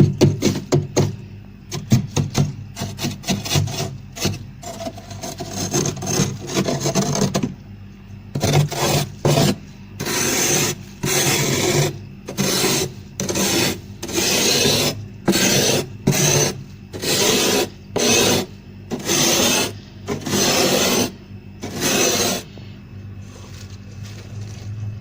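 Frost being scraped off the inside of a fridge freezer. First comes a fast run of short crunchy strokes, then longer rasping scrapes about one a second, which stop a couple of seconds before the end. A steady low hum runs beneath.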